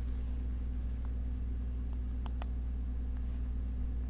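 Two quick clicks close together, like a computer mouse double-click, about two seconds in, with a couple of fainter clicks before them, over a steady low electrical hum.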